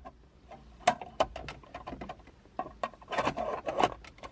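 Small plastic clicks and knocks as a dash storage pocket is handled and snapped into a truck's radio housing, busiest near the end.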